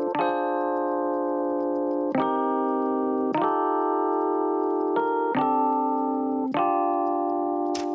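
Background music: keyboard chords, each struck and held, changing every one to two seconds.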